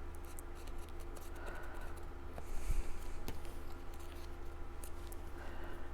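Paper and cardstock pieces being handled: light rustling and a few small clicks, with a brief louder rustle about two and a half seconds in, over a steady low hum.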